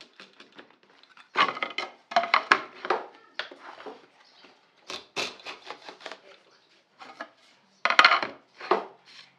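Short scraping strokes of a hand router plane's blade cutting a groove in a red oak panel down to its final depth. The strokes come in irregular bursts with clicks and brief pauses, the loudest near the end.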